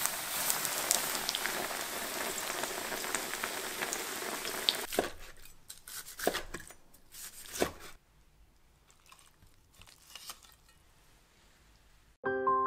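A whole potato-starch-coated chicken thigh frying in oil, with a steady sizzle full of crackles for about the first five seconds. Then a knife crunches through the crisp fried crust onto a wooden board in several separate cuts, followed by a few seconds of quiet.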